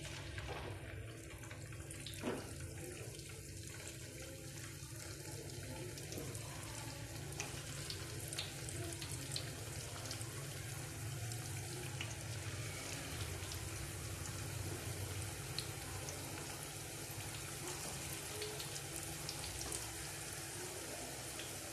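Marinated chicken pieces deep-frying in hot oil in a pan: a steady sizzle with scattered pops and crackles, getting busier as more pieces go into the oil. A single knock about two seconds in.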